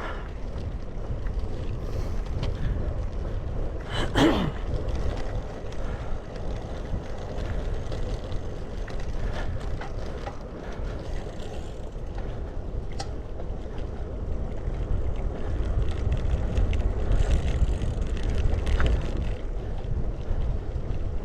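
Wind rumbling on the microphone of a moving bicycle. About four seconds in, a short louder sound falls in pitch.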